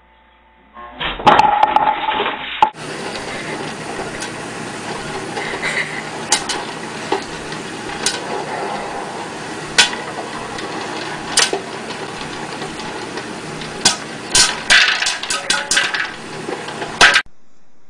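A brief loud clatter near the start. Then a stirring popcorn popper under a clear plastic dome runs with a steady noise while kernels pop: single sharp pops every second or two, quickening into a rapid run of pops near the end.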